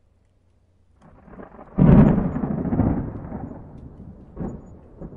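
Intro sound effect for a fireball: a rising whoosh into a sudden deep boom about two seconds in, dying away over a couple of seconds, with two smaller hits near the end.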